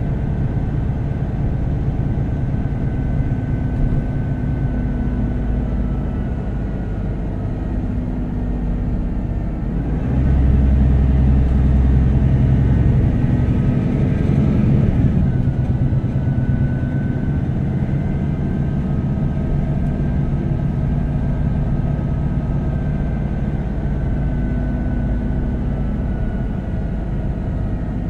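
MAN NG 313 articulated city bus heard from on board, its diesel engine running steadily. About a third of the way in it gets louder for several seconds, pulling harder with a rising whine, then settles back to an even running sound.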